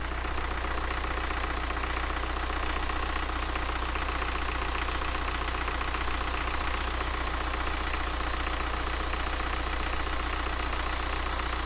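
BMW N47 four-cylinder diesel engine idling steadily with the bonnet open, running smoothly on its first start after a timing chain repair. The drive belt squeaks a little as the alternator charges.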